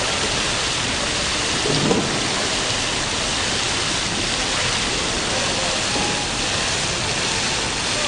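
Water-curtain fountain: many thin streams of water falling and splashing down, a steady hiss with a brief louder splash or knock about two seconds in.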